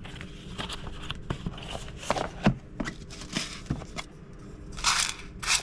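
Small boxes and trinkets being handled: a run of light clicks, taps and rustles, then two short scraping rushes near the end as the lid is worked off a small round box of chains.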